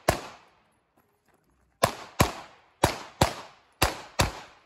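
Compensated Glock 43X 9mm pistol firing: one shot right at the start, then three quick pairs of shots, each pair about a second after the last. Each shot trails off in a short echo.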